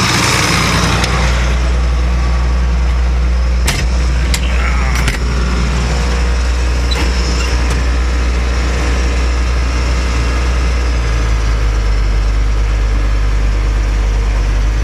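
Tractor engine running steadily while pulling a hay baler, with a few sharp clicks about four to five seconds in and a change in the engine note a few seconds before the end.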